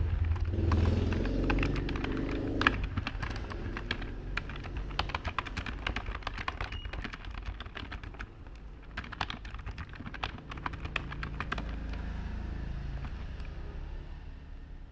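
Typing on a computer keyboard: quick, irregular key clicks, over a steady low background rumble that is louder for the first few seconds.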